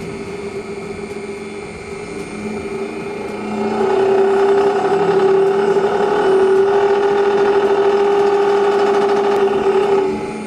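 Quadro Comil 194S conical mill running, its motor and impeller giving a steady hum. It grows louder about four seconds in and begins to wind down near the end.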